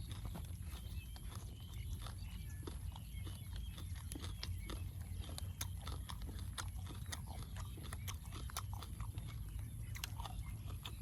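Close-up chewing and mouth smacking on food, heard as many short, irregular clicks over a steady low rumble.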